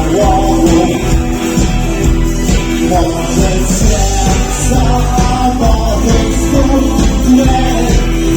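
Rock band playing a song live.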